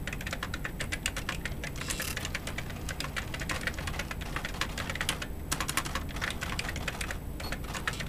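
Fast typing on the keyboard of a Brother EP-43 laptop electronic typewriter: a dense run of light plastic key clicks, broken by a couple of short pauses.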